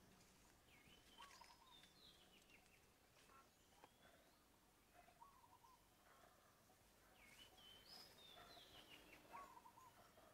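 Faint forest birdsong: short chirps and gliding calls, with a warbling phrase repeated about every four seconds, over a very quiet background.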